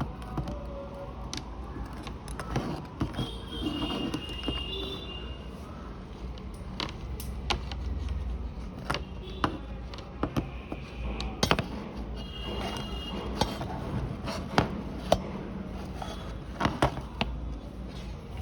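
Scattered small clicks and taps of hands handling a multimeter and its test probes on a small lithium cell, over a steady low hum.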